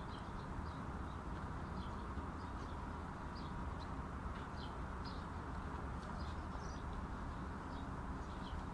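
Steady outdoor background hiss with scattered brief, high bird chirps.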